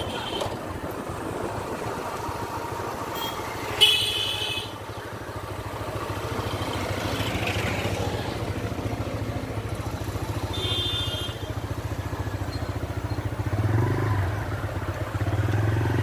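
A motorcycle engine running steadily while riding along a street among other traffic. Two short, shrill tones cut through, about four seconds in and again near eleven seconds.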